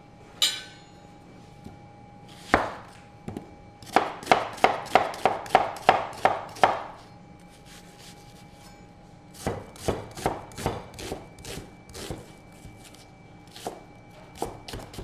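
Chef's knife chopping a peeled onion on a plastic cutting board: a few single cuts, then a fast run of about ten chops at roughly three to four a second, a pause, and more runs of lighter chops.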